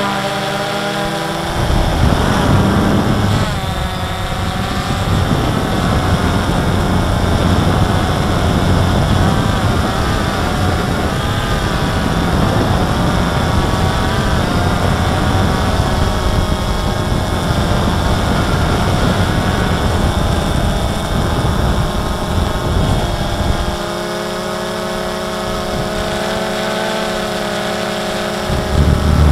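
DJI Phantom 2 quadcopter's four brushless motors and propellers whining, heard from the camera on the drone itself, the pitch wavering as the motors speed up and slow. Wind buffets the microphone heavily for most of the time and eases near the end, leaving the propeller hum clear.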